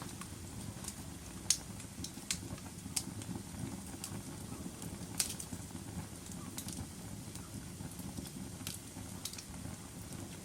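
Wood fire crackling in a fireplace: a steady low rumble of burning with scattered sharp pops and snaps, the loudest about one and a half seconds and five seconds in.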